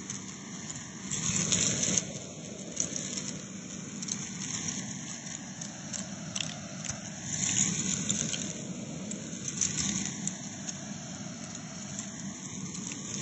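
Vacuum cleaner hose with a crevice tool sucking dry rice and bath salt crystals out of carpet: steady suction noise with a crackling rattle of grains going up the hose, swelling in surges as the nozzle passes through thicker patches.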